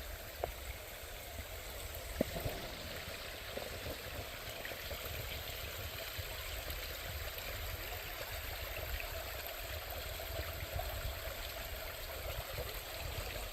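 Creek water running steadily, with a couple of faint clicks in the first few seconds.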